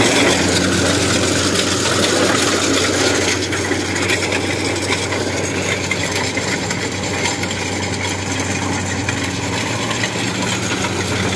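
Kubota DC-70 Plus combine harvester running steadily while cutting rice: an even engine drone mixed with the noise of the cutter bar and threshing machinery.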